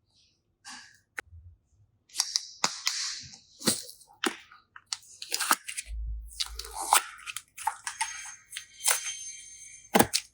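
Hands working slime, with crackling, crunching and irregular sharp clicks, including a few loud snaps. A thin high squeak is held near the end.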